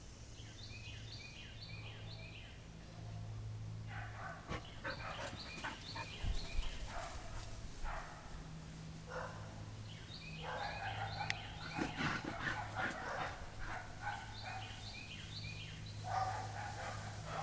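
A dog whining and yipping in irregular bursts, with a bird singing short repeated phrases and a steady low hum.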